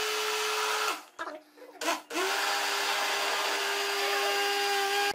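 National electric blender motor running with a steady whine, creaming ghee and powdered sugar in its jar. It is switched off about a second in, gives one short burst about two seconds in, then comes back on, rising in pitch as it spins up, and cuts off near the end.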